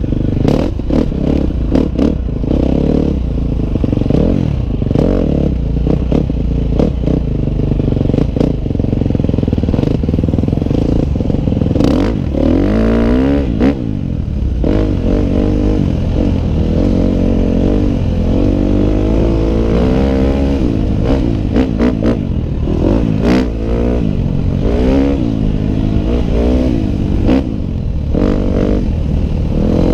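Dirt bike engine heard on board, revving up and falling back again and again as the rider accelerates and shuts off through the turns of a dirt track. Frequent short knocks and clatter from the bike over the bumps run through it.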